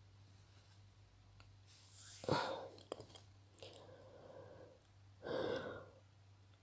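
A woman's breathy exhalations, two louder ones about two seconds and five seconds in, with a few small clicks between them over a faint steady low hum.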